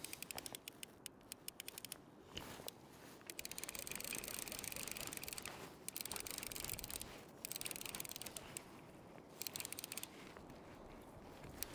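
Fishing reel being wound in on a hooked fish: faint, fast, fine clicking in several spells with short pauses between them.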